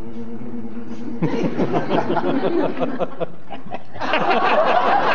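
Audience laughter, breaking out about a second in and swelling louder near the end. It is preceded by a brief steady droning tone.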